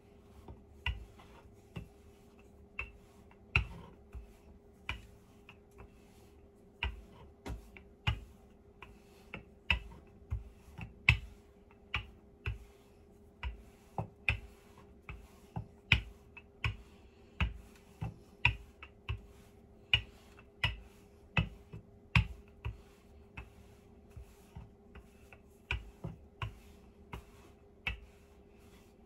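Wooden rolling pin rolling dough out on a wooden pastry board, knocking and clacking against the board as it is pushed back and forth. The knocks are sharp and irregular, one or two a second.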